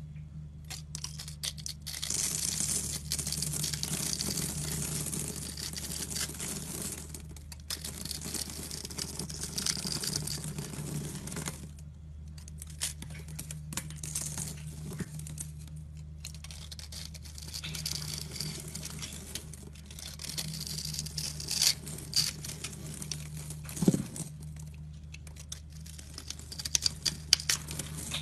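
A utility knife blade cuts and scrapes through a dry bar of soap, making crisp scratchy crunching as small cubes crumble off. The crunching comes in stretches broken by short pauses, with a few sharp clicks near the end.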